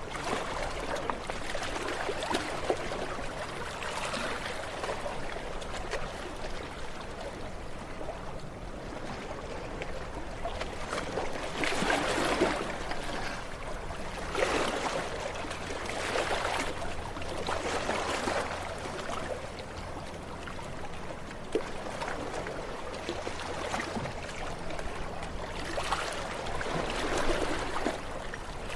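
Ocean waves washing onto a shore: a continuous rush of water that swells and falls back every few seconds as each wave breaks.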